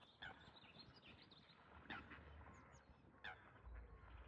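Faint bird calls from birds fighting: three short, sharp calls spaced out across a few seconds, with a few fainter high chirps between them, over an otherwise near-silent background.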